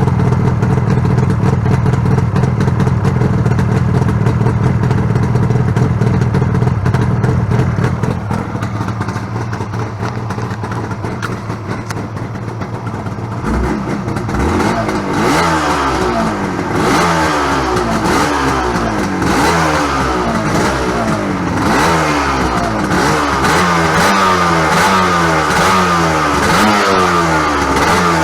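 Yamaha RZ250's water-cooled two-stroke twin idling steadily, then, about halfway through, its throttle is blipped again and again, the revs rising and falling about once every second or so.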